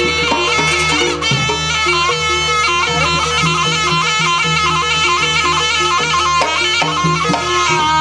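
Live jaranan Banyuwangi ensemble music: a shrill reed horn (slompret) plays a winding, ornamented melody over kendang hand drums and a short repeating figure lower down.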